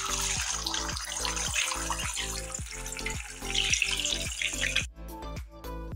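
Eggs sizzling and spitting in hot oil in a kadhai as they are cracked in, over background music with a steady beat. The sizzling cuts off suddenly about five seconds in, leaving only the music.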